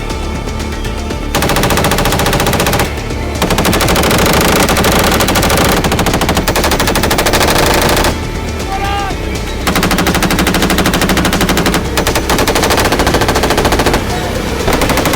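Machine-gun fire in long, rapid, sustained bursts of several seconds each, starting about a second in, with short pauses between bursts.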